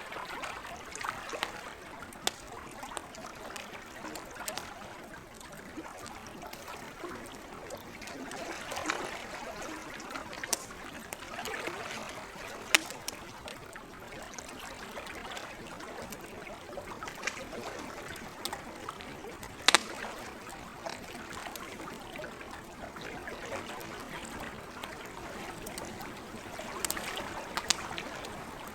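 Campfire crackling and popping in irregular sharp snaps, the two loudest about a third and two thirds of the way in, with a run of pops near the end. Lake water laps and trickles steadily underneath.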